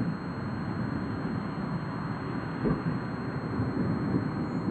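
Storm wind buffeting the microphone in uneven gusts, with a brief low thump about two and a half seconds in.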